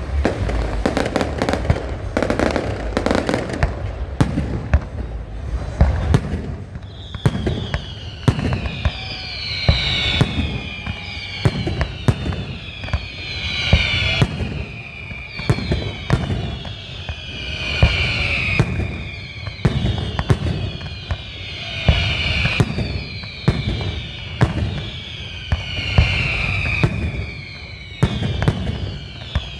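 Fireworks going off: many sharp bangs and crackles throughout. From about seven seconds in, a high falling whistle-like pattern repeats about every four seconds.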